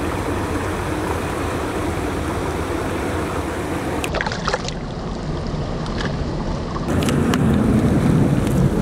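Steady rush of flowing river water mixed with wind on the microphone, with a few small splashes as a rainbow trout is let go by hand at the water's edge.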